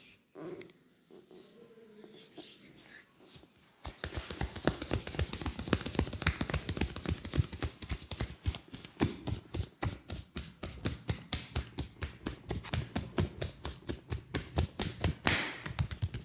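Rapid percussive massage strokes tapping on a leg in a quick, even rhythm, several strikes a second. They start about four seconds in, after a few faint rustles.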